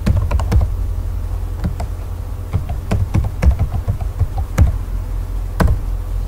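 Keystrokes on a computer keyboard as a password is typed: irregular clicks, with a louder keystroke near the end as the entry is submitted. A steady low hum runs underneath.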